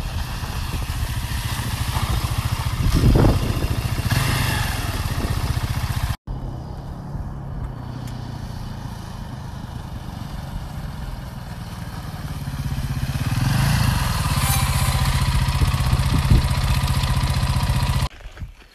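Dirt bike engines on a gravel road. One swells as a bike passes close about three seconds in, the sound cuts off suddenly a little after six seconds, and another bike's engine rises again near the end.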